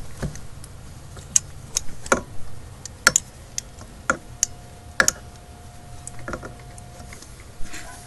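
Irregular light clicks and taps of metal parts as an M12×1.5 shop-air adapter on its hose is threaded by hand into the ICP sensor port of a Ford 6.0L Powerstroke diesel engine.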